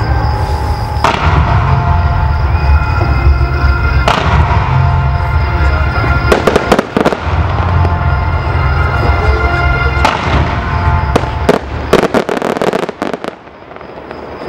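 Fireworks launching and bursting with crackling cracks, over loud music with a heavy bass beat. Clusters of sharp cracks come about halfway through and again near the end, when the music drops away.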